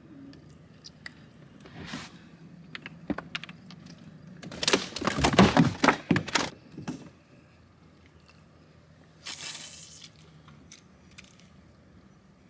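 Handling noises on a fishing boat's deck: a few light clicks, then about two seconds of rapid clattering knocks and thumps around the middle, and a short rustling swish a few seconds later.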